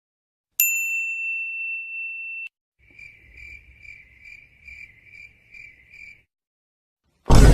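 Comedy sound-effect sequence: a single bright ding that rings for about two seconds and cuts off, then a cricket-chirp effect of about eight chirps at roughly two a second, the stock cue for an awkward silence. Near the end a loud deep boom hits suddenly.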